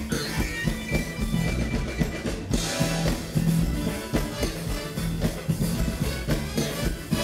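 Live funk band playing, with electric bass guitar and a drum kit keeping a steady beat.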